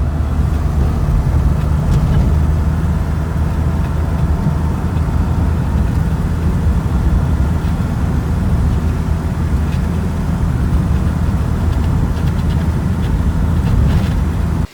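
A 1951 hot rod being driven: a steady, loud, low drone of engine and road noise with no change in pace. It stops abruptly at the very end.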